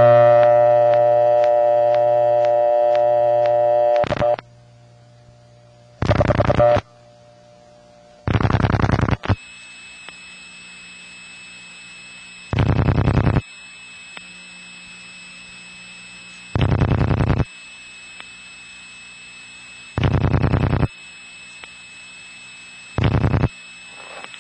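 Old telephone line audio through a step-by-step exchange. A loud buzzy tone lasts about four seconds, then short buzzy ringing bursts come every three to four seconds over hissing line noise. Under them is a steady faint high tone, the on-hook 2600 Hz trunk tone leaking past a notch filter.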